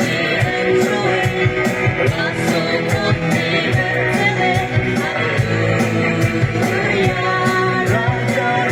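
Live praise and worship band playing a song at sound check: guitar, drum kit keeping a steady beat with cymbals, and a voice singing.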